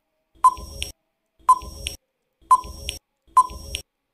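Countdown-timer sound effect: four short, identical ticks about one a second.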